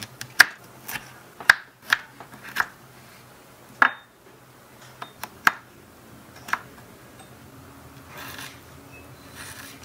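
A tiny kitchen knife clicking and tapping on a miniature wooden cutting board while cutting broccoli, with pieces knocked against a small glass bowl: about ten sharp taps spread over the first seven seconds. Near the end come two soft, rasping strokes as the knife slices raw chicken on the board.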